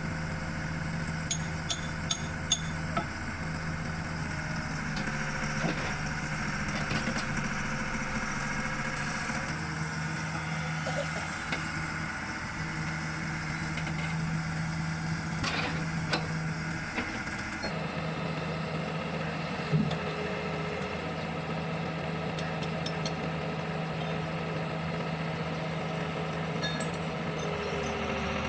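Diesel engine of an old Sumitomo hydraulic excavator running steadily under working load while it lifts concrete slabs, with a few sharp clanks now and then.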